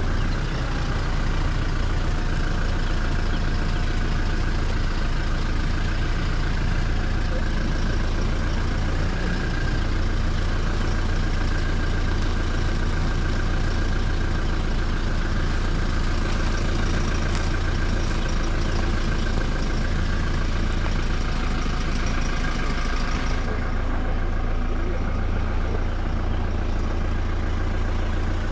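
Safari game-drive vehicle's engine running at a slow crawl, a steady low rumble.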